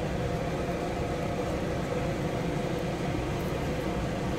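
A fan running, a steady hum with an even hiss over it.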